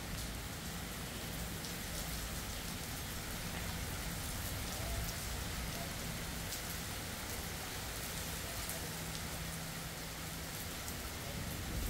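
Steady rain falling in a thunderstorm, with scattered drops ticking on nearby surfaces. A faint low steady hum runs underneath.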